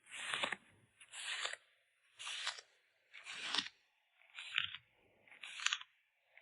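Packing materials being handled: six short rustles of paper or plastic packaging, about one a second.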